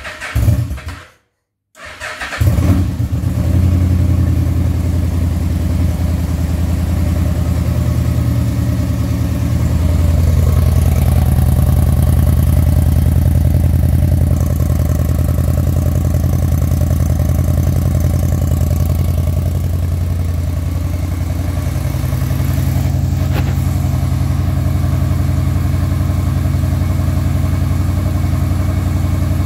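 A 1996 Yamaha V-Max 1200's V4 engine with a Marving aftermarket exhaust starts from cold on choke about two seconds in, after a brief burst and a pause. It settles into a steady, slightly rough idle, with the idle stepping up a little about ten seconds in.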